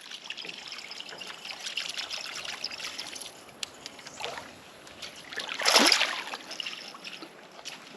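River water trickling and lapping against a small boat, with faint ticks and a brief louder burst of noise about six seconds in.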